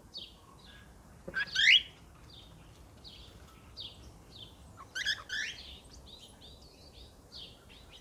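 Cockatiels chirping: a steady run of short, high chirps, with two louder rising calls, one about one and a half seconds in and one about five seconds in.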